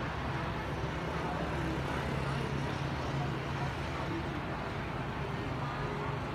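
Road traffic: motor scooters and cars passing on a city street, a steady low engine hum.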